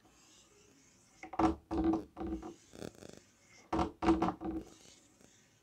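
Chalk scraping and tapping on a blackboard as lines are drawn, broken by a few short, quiet spoken fragments.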